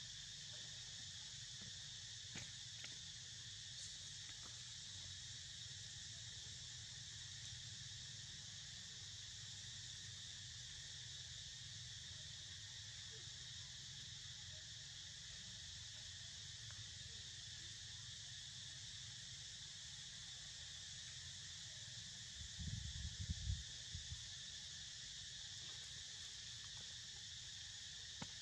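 Faint, steady insect chorus droning in several high even bands, over a low rumble. A brief cluster of low thuds comes a few seconds before the end.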